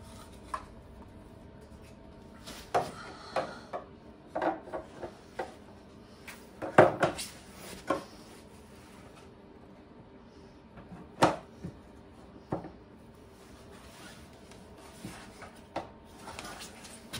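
Plastic light fixture being pushed and worked into its opening in a motorcycle rear fender: irregular clicks, knocks and rubbing, the loudest knocks about seven and eleven seconds in.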